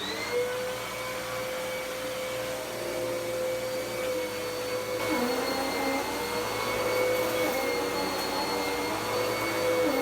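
Dirt Devil PowerMax Pet upright vacuum cleaner running, its motor whine rising as it comes up to speed in the first moment, then holding steady with a slight drop in pitch about halfway through and again near the end.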